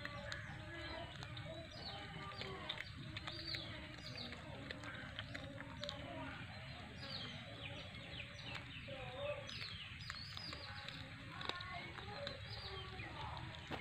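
Birds chirping throughout: many short, high, falling chirps from more than one bird, over faint distant voices and a steady low outdoor hum.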